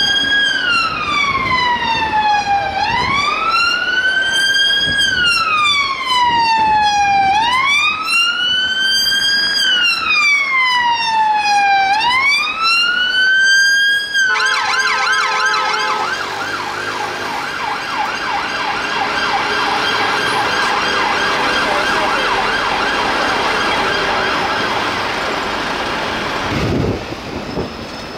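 Police vehicle siren on a slow wail, rising and falling about every four to five seconds. About halfway through it switches suddenly to a fast yelp, which then grows fainter.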